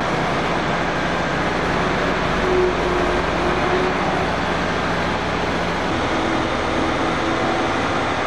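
Steady, loud vehicle noise: an even rushing hum with no rhythm, and a faint steady tone that comes and goes.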